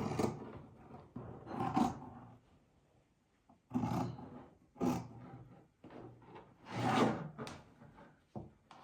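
Scissors cutting a piece of faux fur in half, heard as about five separate short cuts spread a second or more apart.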